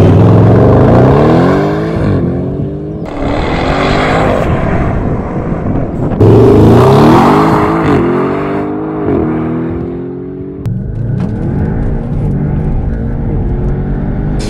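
Audi S8's 4.0 TFSI twin-turbo V8 accelerating hard from a launch, revs climbing and dropping back at each upshift. About six seconds in, a second loud pull starts and climbs through several more upshifts.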